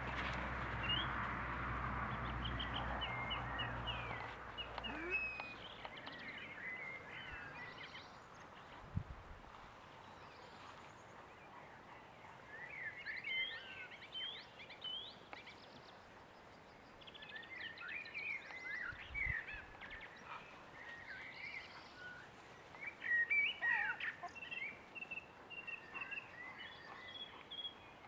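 Small birds chirping and twittering in bursts of short, quick calls over faint outdoor background noise, with a low rumble in the first few seconds.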